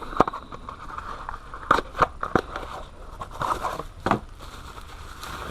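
Car parts being handled and taken out of a box: a few scattered clicks and knocks with some rustling and scraping between them.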